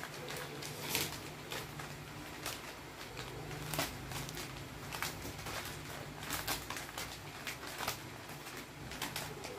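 Plastic sanitation-card sachets crinkling and clicking as they are handled and counted one by one on a table, in irregular short crackles and taps. A low steady hum runs underneath.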